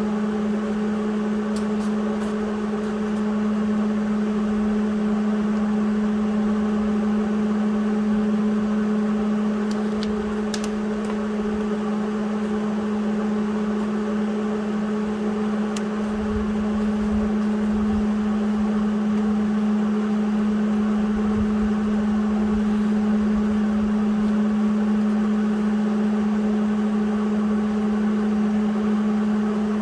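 Steady machine hum holding one fixed pitch, with a few faint clicks about ten seconds in.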